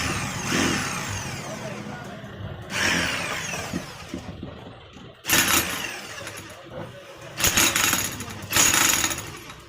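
Electric chipping hammer (5 kg demolition breaker) switched on in four short bursts. Each burst starts abruptly, and the motor winds down in falling pitch after it.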